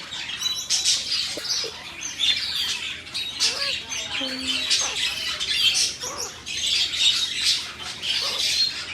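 Many parrots calling at once: a dense, continuous chatter of short high chirps and squawks.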